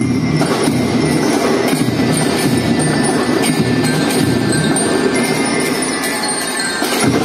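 A children's drum band starts playing, bell-lyres ringing the tune over marching drums; the music comes in suddenly at the very start and carries on loud and steady.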